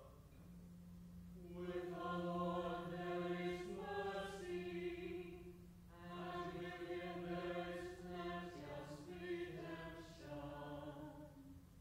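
A small group of voices chanting together in two long sung phrases, with a short break between them.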